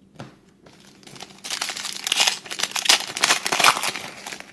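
Foil wrapper of a Panini Prestige football card pack crinkling as it is handled and torn open. A dense run of crisp crackles starts about a second and a half in, after a few faint ones.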